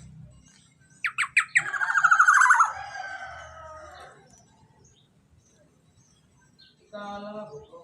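Young black-naped oriole calling: four quick notes falling in pitch, running straight into a long harsh, buzzy call. A shorter, lower call follows near the end.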